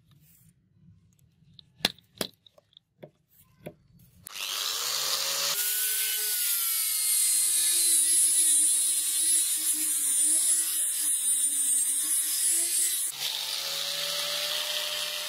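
A few light clicks and taps, then about four seconds in an electric angle grinder starts with a rising whine and sands the steel knife blade with a 1500-grit sanding disc, its pitch dropping while pressed on the blade. Near the end it is eased off and runs at a higher pitch.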